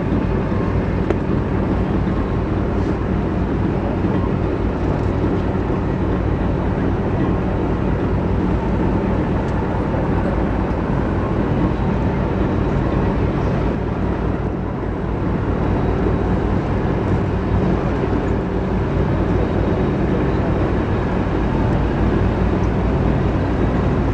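Paddle steamer Waverley under way, its triple-expansion steam engine and paddle wheels making a steady low drone with a rushing noise over it.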